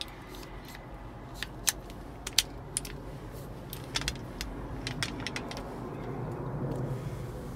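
Scattered light clicks and taps, a dozen or so sharp ones spread over several seconds, over a low steady rumble that grows a little louder near the end.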